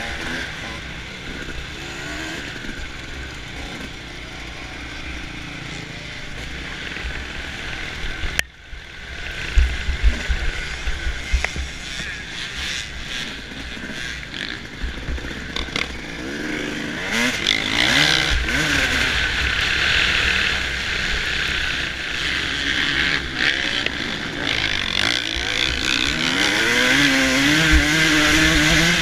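2005 Suzuki RM250 two-stroke motocross bike's engine running hard and revving up and down as it races over a dirt track, heard through wind buffeting on the mic. Loud thumps about ten seconds in, and the engine revs climb toward the end.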